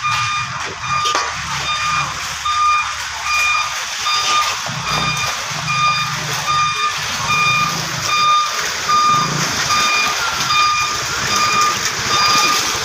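A vehicle's reversing alarm beeping steadily at one fixed pitch, a little more than one beep a second, over a low engine rumble.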